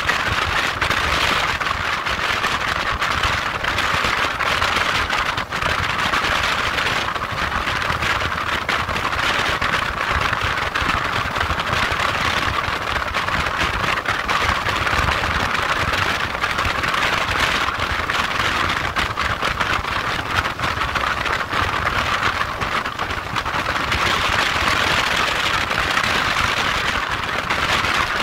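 Steady wind rush over the microphone of a motorcycle riding at road speed, with the bike's engine and road noise underneath.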